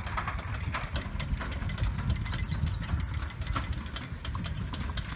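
A rebuilt John Deere hay rake being towed, its gearbox and toothed reel clattering in quick, irregular clicks over the steady low running of the small utility vehicle pulling it.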